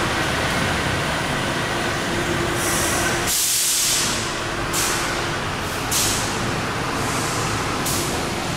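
Street traffic at a bus rotary, with buses and cars running, broken by several short air hisses from bus air brakes, the loudest about three and a half seconds in.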